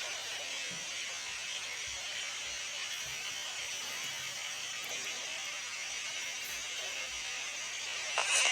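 A steady buzzing hiss, then near the end a sudden louder burst as the hedgehog sneezes.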